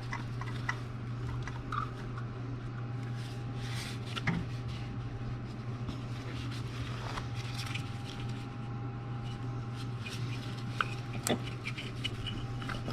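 Scattered light clicks and rubbing as spark plug wires are handled and worked loose in an engine bay, over a steady low hum.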